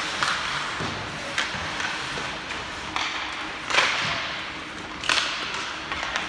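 Ice hockey in play: skate blades scraping and carving the ice, with short sharp clacks of sticks and puck, the loudest nearly four seconds in, over the steady hum of the arena.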